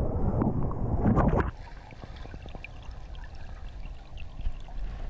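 Whitewater rapid rushing loudly around a kayak. About a second and a half in it cuts off abruptly to a much quieter underwater gurgle, with small scattered ticks and bubbles.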